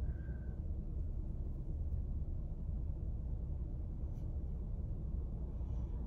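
Steady low rumble inside a car's cabin.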